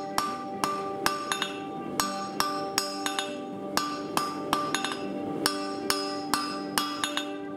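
Hand hammer striking a red-hot 3/8-inch square steel bar on an anvil, drawing out a taper: about two to three blows a second, unevenly spaced and sometimes in quick pairs, each one ringing.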